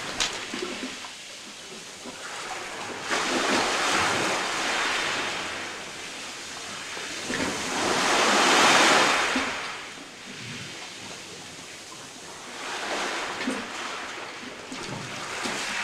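Small sea waves washing onto a pebble beach, each wash swelling up and falling away about every four to five seconds, the loudest near the middle.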